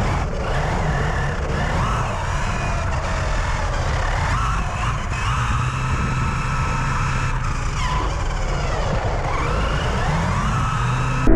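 Electric RC cars running, their motors whining and gliding up and down in pitch as they speed up and slow down, over a steady rumble of driving noise. Near the end the sound cuts abruptly to something louder and duller.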